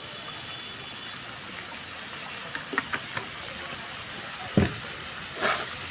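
Thin masala gravy simmering in a metal kadai with a steady bubbling hiss. A few light clicks of the metal spatula against the pan come near the middle, a sharper knock about four and a half seconds in, and a short spluttering hiss just after it.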